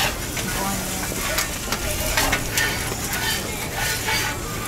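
Okonomiyaki sizzling on a large flat iron griddle, with repeated short scrapes and clacks of a spatula cutting and lifting pieces off the hot plate.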